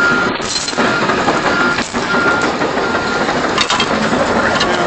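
A heavy machine's backup alarm beeping repeatedly, a steady high tone, over the constant noise of heavy equipment running.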